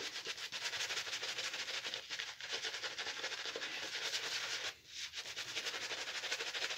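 Shaving brush swirled through thick lather on the face: rapid, even swishing strokes, with one short pause about two-thirds of the way in.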